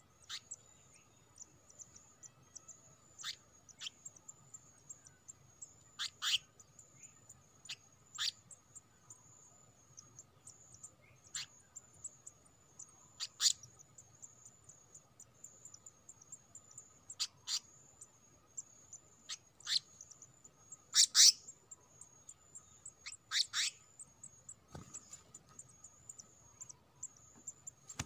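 Short, sharp bird chirps, about a dozen at irregular intervals, the loudest pair about two-thirds of the way through. Under them runs a steady, high-pitched insect trill.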